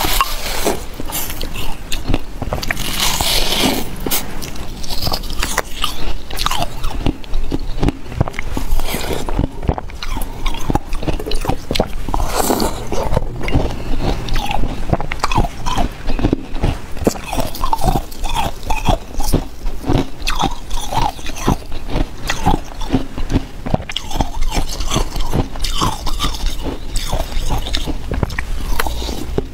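Ice being bitten and chewed close to the microphone: a dense, continuous run of crisp crunches and crackles.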